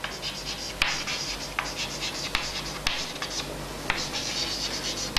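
Chalk writing on a chalkboard: scratchy strokes with several sharp taps where the chalk strikes the board.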